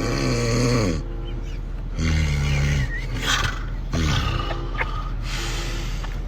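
Comical snoring: a run of loud snores and snorts, two of them falling in pitch, with hissing breaths between them.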